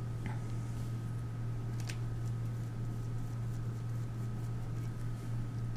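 A steady low hum, with a couple of light clicks and faint brushing as a flat paintbrush dabs acrylic paint through a plastic bubble stencil on paper.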